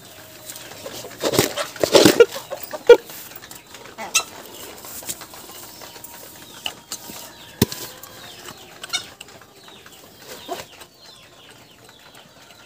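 Chickens clucking, with a loud flurry about one to three seconds in, then scattered softer clucks and a few sharp knocks.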